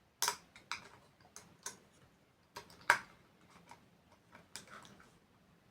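A run of irregular light clicks and taps, with one sharper click about three seconds in: small clock parts being handled and pressed into place.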